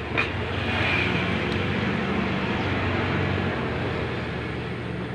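Industrial sewing machine running: a steady motor hum with a fast, even mechanical chatter.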